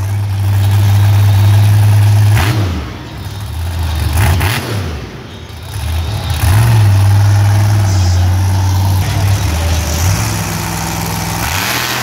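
Grave Digger monster truck's supercharged big-block V8 running loud under heavy throttle. It lifts off and blips the revs briefly a few times, about three and five seconds in, before pulling hard again.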